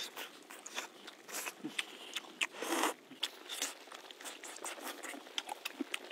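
Close-up eating sounds: wet chewing and lip smacks as a person bites and chews soft meat from a bowl of soup, with two short breathy sounds about one and a half and three seconds in.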